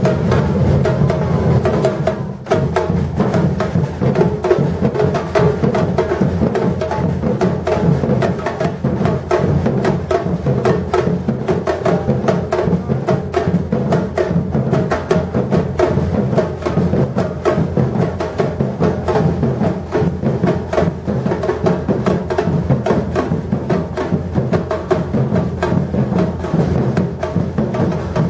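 Batucada drum ensemble playing a steady, dense groove: deep surdo bass drums under many fast snare and hand-drum strokes, with a brief dip about two seconds in.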